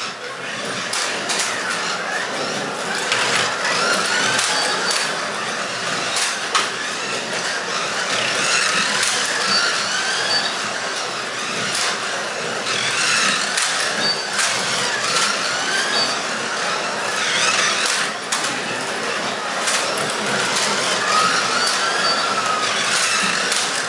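1/24-scale Carrera Digital slot cars (Ferrari P4 models) racing on a plastic track. Their small electric motors whine, rising and falling in pitch as they speed up and slow down, over a steady hiss of the cars running on the track, with sharp clicks now and then.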